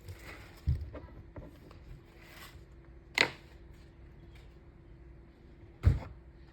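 A few knocks and thumps: one about a second in, a sharper one about three seconds in and another near the end, with smaller ticks between, over a faint steady hum.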